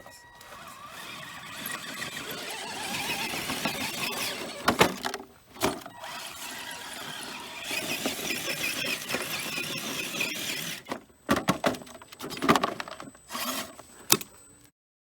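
Gmade GS02 BOM RC crawler truck's electric motor and gears whining, rising and falling as it is driven, with several sharp knocks along the way. The sound cuts off abruptly near the end.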